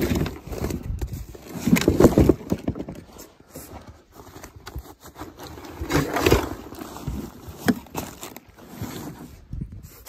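Irregular bursts of scraping and rustling as packs and gear are handled in a plastic sled in snow, loudest near the start, about two seconds in and about six seconds in.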